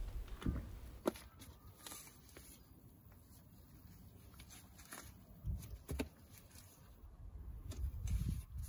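Faint handling noise of a Ford Focus MK2 front suspension strut, coil spring on shock absorber, being worked out of the steering knuckle and wheel arch: a few light knocks about one, two and six seconds in, with soft low bumps near the middle and end.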